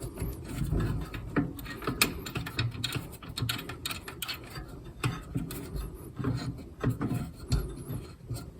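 Scattered clicks, knocks and rubbing of hand-worked metal parts as the wheel-adjustment knob on a Pallmann Cobra belt sander is turned against a setting tool. The sander is not running.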